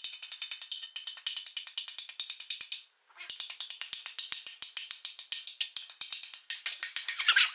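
Background music with a fast, even clicking beat, cutting out briefly about three seconds in.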